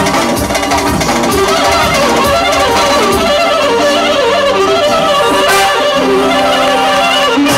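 Live band music: a wavering melodic lead line over drums from an electronic drum kit, ending on a long held note.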